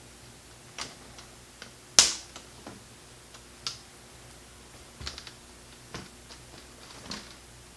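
Plastic snap clips of a laptop screen bezel popping loose one after another as a pry tool works around it. A series of sharp snaps, the loudest about two seconds in: it sounds like something broke, but it is only the clips releasing.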